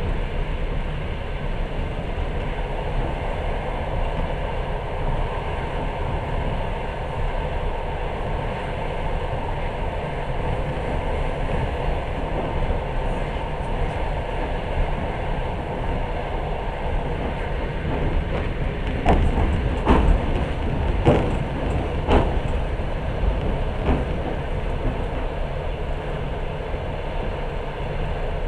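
Passenger train running at speed, heard from inside the carriage: a steady rumble of wheels on the rails, with a short cluster of sharper knocks about two-thirds of the way through.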